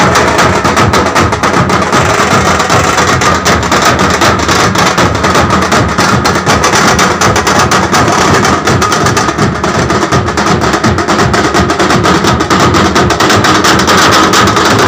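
Loud music with fast, dense drumming, and a steady high tone held above the drums.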